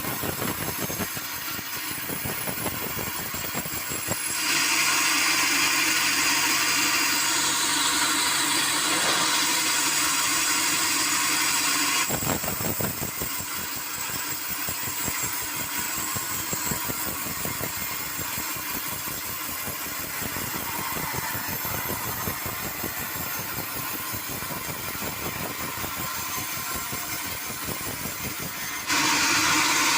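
Sawmill machinery running steadily, with a louder, hissier stretch of several seconds about four seconds in and another near the end.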